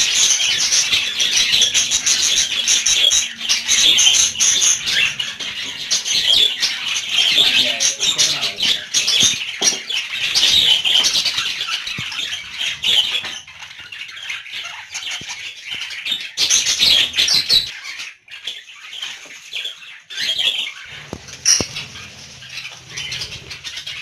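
A colony of budgerigars chattering and chirping, with wings flapping. The chatter thins out a little past halfway, then comes back in shorter spells.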